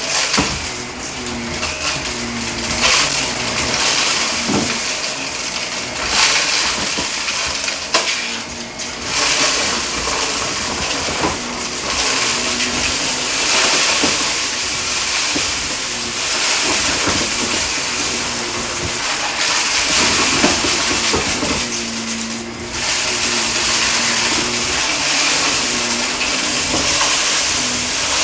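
Shark vacuum running on carpet with its steady motor noise, and debris crunching and rattling as it is sucked up.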